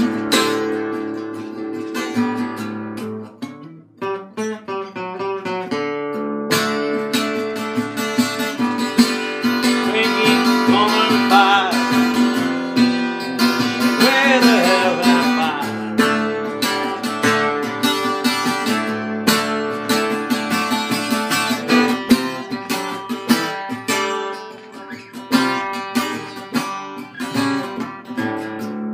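Epiphone EL-00 parlor acoustic guitar strummed hard with a flat pick in an alternate tuning, in an instrumental folk-rock passage. About four seconds in, the playing drops to a quieter stretch of picked notes, then builds back to full strumming.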